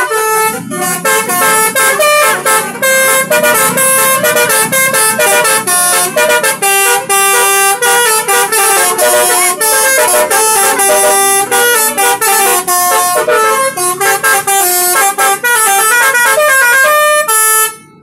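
Telolet horn, a multi-tone musical vehicle horn, playing a quick tune of short notes in changing pitches. It is loud and carries on almost without a break, then cuts off shortly before the end.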